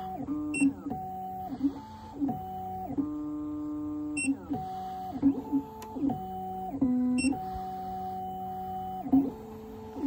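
Black Widow computerized key-cutting machine's stepper motors whining as the carriage moves the clamped key blank under the cutter, the pitch holding steady and then jumping or sliding to a new note every second or so. A few short clicks are heard.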